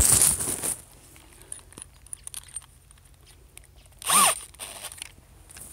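Rustling and scraping of the camera being handled down among grass stems, loudest at the start and again in a short burst about four seconds in, which carries a brief falling squeak.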